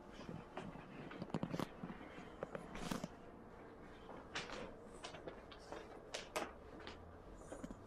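Footsteps and handling knocks on a hardwood floor: scattered light thumps and clicks, the clearest a little over a second in and about three seconds in.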